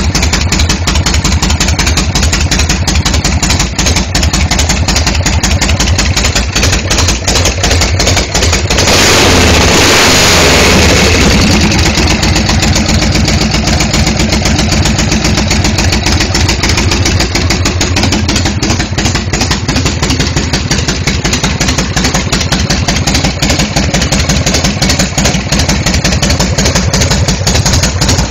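1979 Harley-Davidson Shovelhead V-twin engine idling loudly with a steady pulsing beat. It is revved once about nine seconds in, and the revs fall back to idle a couple of seconds later.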